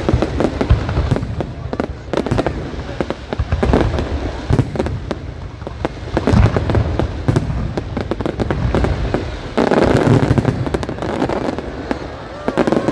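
Aerial fireworks display going off in a rapid, unbroken string of booms and sharp bangs, thickening into a dense burst of crackling about ten seconds in.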